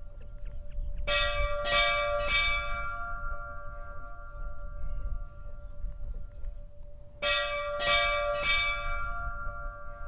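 Church bell of Búðakirkja struck three times in quick succession, about a second in, then three times again about six seconds later. Each strike leaves a long ringing hum that carries on between the groups.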